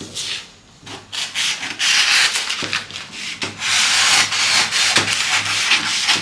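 Scissors cutting through a sheet of white pattern paper, a dry cutting noise in several stretches, longer in the second half, with the paper rustling.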